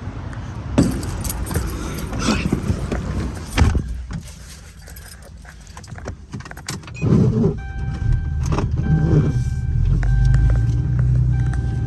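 Keys jangling and the clicks and knocks of getting into a truck, then the truck's engine starting about seven seconds in and settling into a steady idle, with a warning chime repeating over it.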